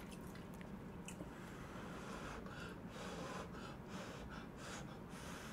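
Faint sounds of a person eating Chapagetti noodles: soft chewing and breathing, with a run of short soft noises from about two seconds in.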